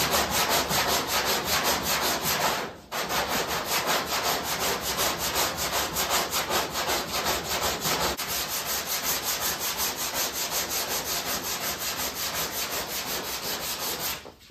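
80-grit sandpaper on a hand sanding block rasping back and forth over cured body filler on a steel quarter panel in quick, even strokes, with a short break about three seconds in. This is the rough-shaping pass that knocks down the filler's high spots.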